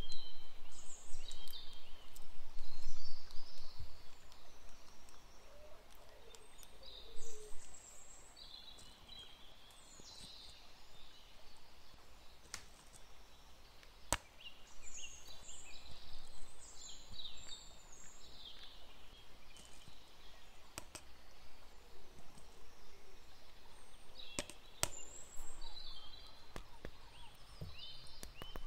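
Birds chirping in short clusters of high calls. A few sharp clicks, a spoon knocking against the plastic dessert cups, sound as cake crumbs are spooned in.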